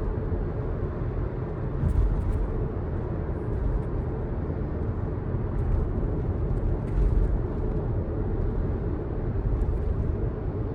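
Car cabin noise while driving: a steady low road and engine rumble, with a few short, sharp sounds over it, the plainest about two seconds in and again near seven seconds.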